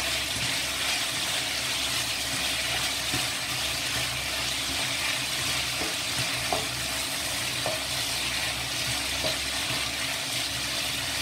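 Shredded chicken and sliced shiitake mushrooms sizzling steadily in oil in a wok while being stirred and tossed with a spatula, with a few light scrapes and taps of the spatula against the pan.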